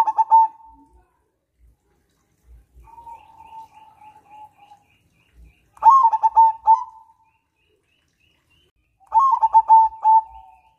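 Zebra dove (perkutut) singing: three loud phrases of quick staccato coos, at the start, about six seconds in and about nine seconds in, with a softer drawn-out coo around three seconds in. Faint high chirps of another small bird repeat in the background.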